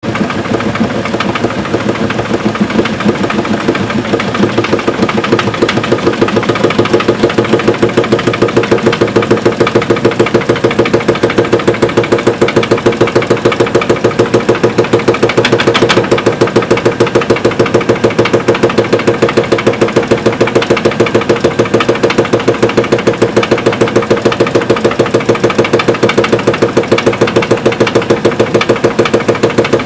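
Evrika-3M semi-automatic washing machine spinning its drum, with a fast, even knocking from its bearing, the sign of a failing bearing. The knocking grows louder over the first few seconds as the spin builds, then holds steady.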